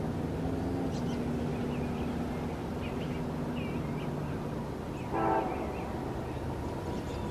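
Low, steady rumble of a distant train with birds chirping, and one short train horn toot about five seconds in.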